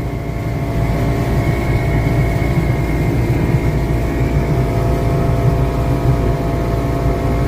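Motorboat's outboard engine running steadily at cruising speed, a dense hum with a faint high whine above it from about a second in.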